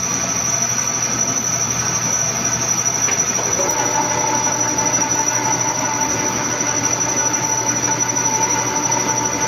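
Milling machine running with a spinning bar that carries a 1 mm-wide tool bit. About four seconds in, a steady high metallic squeal sets in over the machine's hum as the narrow cutter bites into the work.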